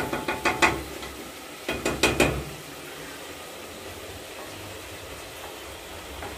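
Wooden spatula stirring meat in an enamel pot, with quick scraping strokes in the first second and a couple more about two seconds in. Then the spiced meat for the plov frying in the pot with a steady low sizzle.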